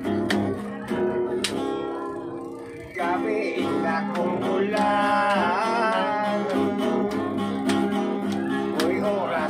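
Acoustic guitar strummed alone for about three seconds, then a man starts singing over the strumming.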